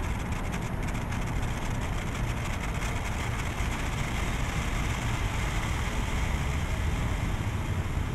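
Steady low rumble of city traffic, with faint crackling from a burning senko hanabi, a Japanese handheld sparkler.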